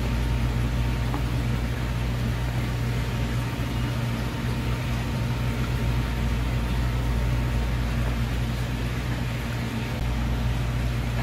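Steady low machine hum of a running motor, with a faint thin steady tone above it; nothing in it rises, falls or stops.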